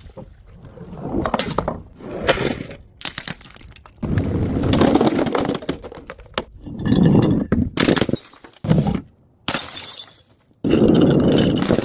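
Glass bottles breaking and shattering in a series of separate smashes, some brief and some lasting a second or more.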